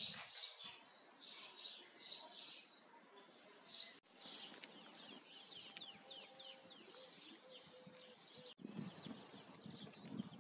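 Faint birdsong: small birds chirping, with runs of quick high chirps. The sound breaks off abruptly twice, about four seconds in and again near the end.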